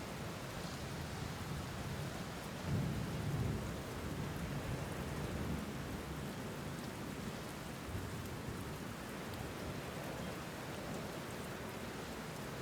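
Steady rain with a low rumble of thunder that swells about three seconds in and fades over a second or so.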